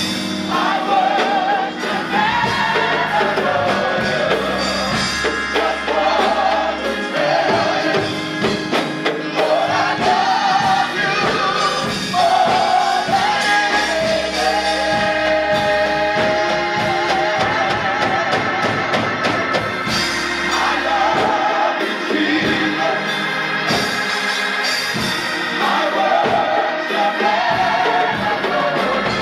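Gospel choir singing with live band accompaniment, sung notes wavering over steady chords and a regular beat.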